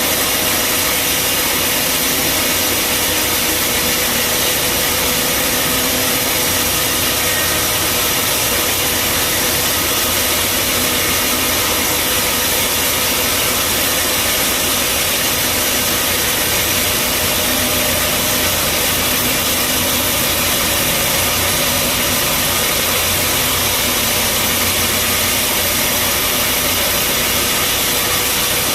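Bandsaw sawmill running steadily: a constant, loud mechanical noise with a few steady hums, no breaks or changes in pitch.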